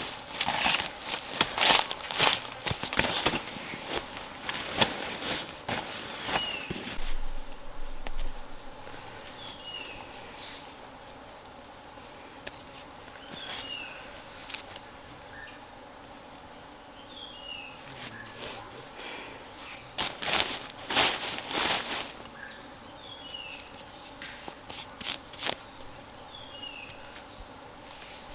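Several bursts of rustling and crunching, most of them in the first seven seconds and again past the twenty-second mark. Under them runs a steady high-pitched insect drone, with short falling chirps every few seconds.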